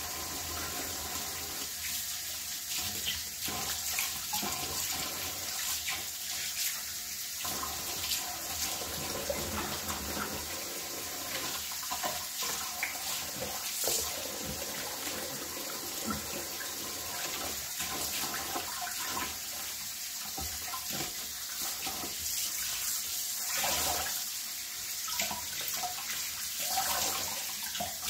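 Kitchen faucet running a steady stream into a stainless steel sink, with irregular splashing as freshly dyed cotton yarn is worked and squeezed under it to rinse out excess dye.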